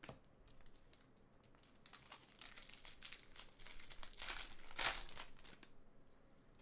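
A foil baseball card pack being torn open and crinkled by hand: a run of crackling that builds and peaks just before five seconds in, then dies away.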